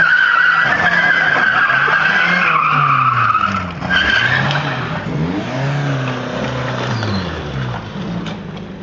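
A wrecked sedan spinning in circles on tarmac: its tyres squeal loudly for about three and a half seconds, break off, then squeal again briefly. Under the squeal, the car's engine revs rise and fall over and over.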